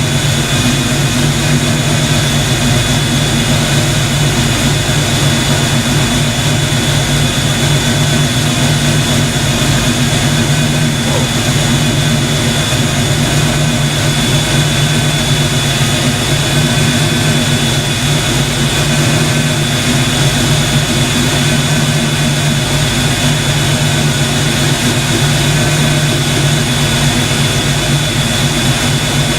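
Loud, steady mechanical running noise: a constant low drone with a thin high whine held over it, unchanging throughout.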